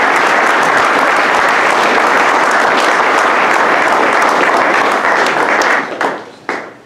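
A roomful of people applauding steadily, dying away near the end with a few last claps.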